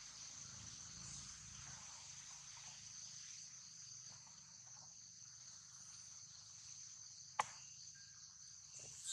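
Steady high-pitched chorus of insects in the surrounding forest, faint and unbroken, with one sharp click about seven seconds in.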